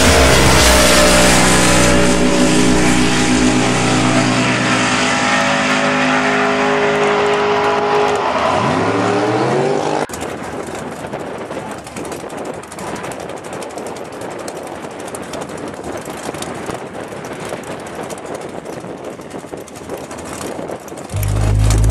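Drag-race cars at full throttle running away down the strip, their engines' pitch bending and climbing before cutting off suddenly about ten seconds in. A quieter, even rush of outdoor noise follows, and near the end a drag car's engine starts a loud, low idle.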